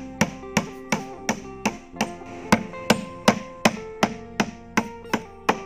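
Hammer driving a nail into wooden boat planking, in a steady run of blows about three a second. Guitar background music plays underneath.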